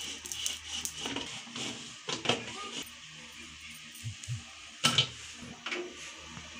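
Aluminium pressure cooker being closed on a gas stove: a faint hiss in the first few seconds, then a few sharp metal clicks and knocks as the lid is fitted and handled.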